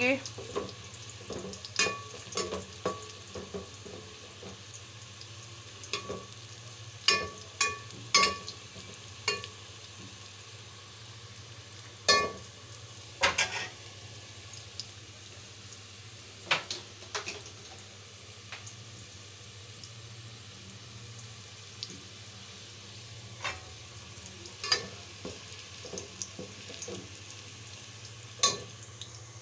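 Sliced onions sizzling as they fry in oil in a metal pot, with sharp, irregular clinks and scrapes of a metal spoon against the pot as they are stirred. The onions are nearly browned.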